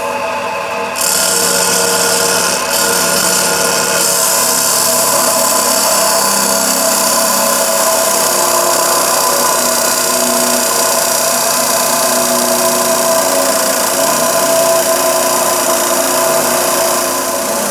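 Electric abrasive cut-off saw, its wheel spinning and then biting into a clamped metal bar about a second in: a loud, steady grinding hiss over the motor's whine. The grinding eases slightly near the end.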